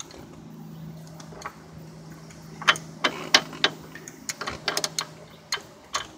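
Ratchet wrench with a socket on a car's tie rod end nut, loosening it: a string of sharp, irregular metal clicks from about two and a half seconds in.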